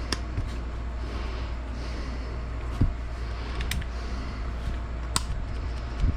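A few sharp clicks and one dull knock from AR-type rifle parts being handled and taken apart, over a steady low hum.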